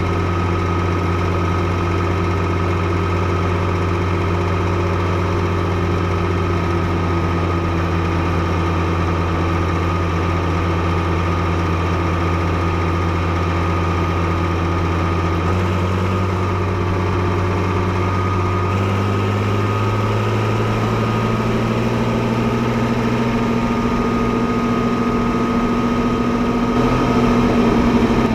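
Fiatagri 115/90 tractor's 5.9-litre six-cylinder FIAT diesel engine running steadily at idle, then revs raised in two small steps about halfway through and climbing slowly after that, a little louder near the end.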